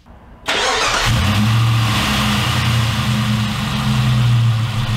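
Jeep Grand Cherokee engine started: a short burst of cranking about half a second in, then it catches and settles into a steady idle. This is the first start after the new high-output alternator was fitted.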